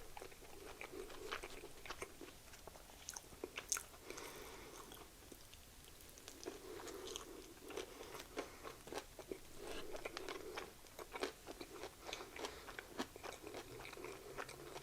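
Close-miked chewing of a chicken sandwich: many small, irregular wet mouth clicks and smacks.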